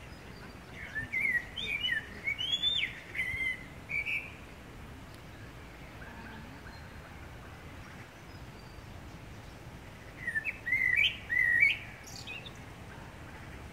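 A blackbird singing two phrases of quick, varied warbled and whistled notes, the first about a second in and the second about ten seconds in, with a pause between them.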